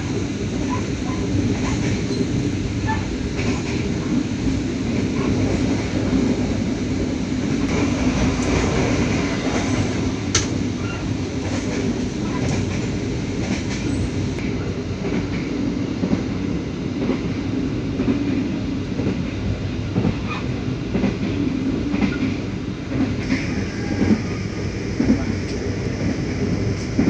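Passenger train coach rolling along the track, heard from inside: a steady rumble of wheels on rails with scattered clicks.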